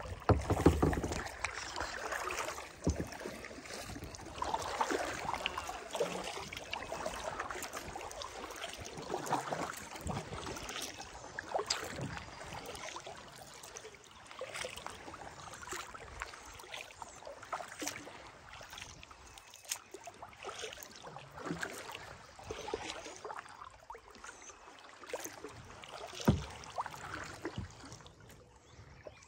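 Kayak paddling: paddle blades dipping and pulling through calm water, with water splashing and dripping off them in an uneven rhythm of strokes. A few sharp knocks stand out among the strokes.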